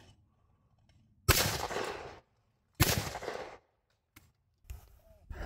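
Two shotgun shots about a second and a half apart, each followed by a short ringing decay: a Beretta 686 over-and-under firing both barrels at a pair of clay targets.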